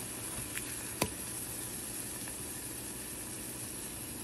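Battered plantain slices sizzling steadily in shallow frying oil in a skillet, with a sharp click of a utensil about a second in.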